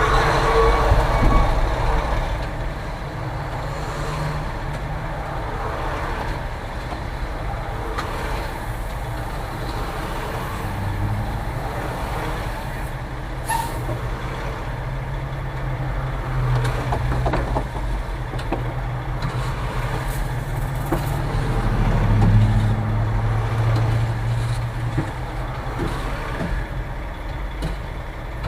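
Concrete mixer truck's diesel engine running steadily during a pour, revving up several times, around 11 s in, 16 s in and most strongly about 22 s in.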